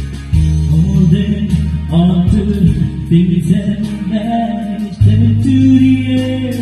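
A man singing a pop song into a hand-held microphone, amplified over an instrumental accompaniment with a steady bass line.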